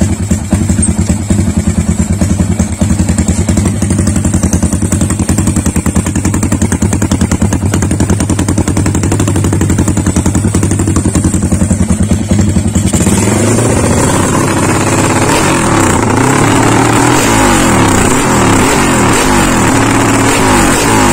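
Yamaha LC135 single-cylinder four-stroke engine, bored to a 66 mm piston, running through a YY Pang exhaust with a 28 mm header just after its first start. It runs with a fast, choppy beat, then from about two-thirds of the way in the engine speed rises and falls repeatedly as the throttle is worked.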